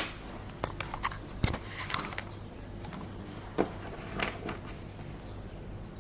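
Handling noises: scattered light knocks, clicks and brief rustles over a steady low hum, the sharpest right at the start and another about three and a half seconds in.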